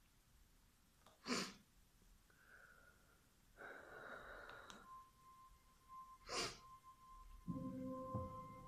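A man's breathing: two short, sharp breaths about five seconds apart, with a longer, softer breath between them. A steady high tone of background music comes in about halfway through, with lower held notes joining near the end.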